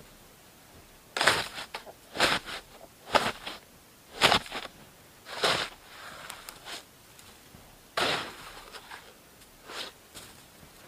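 Crunching snow: a run of sharp crunches roughly a second apart, with a short pause a little past the middle before they resume.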